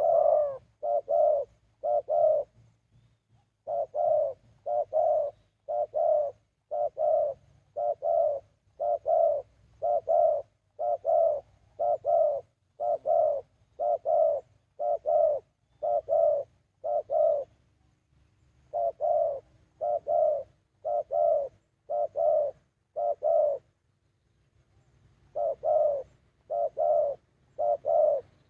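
Spotted dove cooing: a long run of low coos, about one a second, in phrases broken by short pauses.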